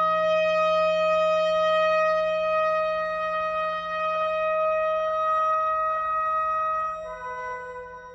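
Contemporary chamber-ensemble music: a wind instrument holds one long, steady high note over a low sustained note. About seven seconds in the held note gives way to new, quieter pitches.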